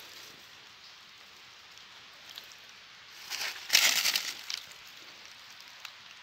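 Leaves and fern fronds rustling and crunching as a hand pushes through forest undergrowth, with one louder burst of about a second a little past the middle.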